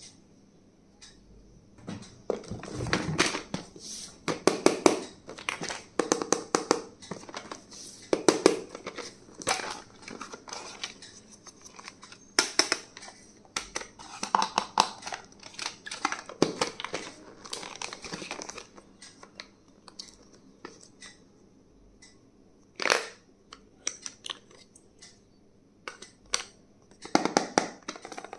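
Plastic packaging being crinkled and crushed by hand, with rustling and sharp clicks and taps as stationery is unpacked. It comes in irregular runs with short quiet pauses, and there is one loud click about two-thirds of the way through.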